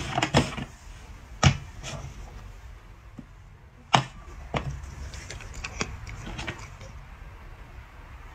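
Sharp knocks and taps of cups being moved and set down on a tabletop. There are a few separate strikes, the loudest about a second and a half in and about four seconds in.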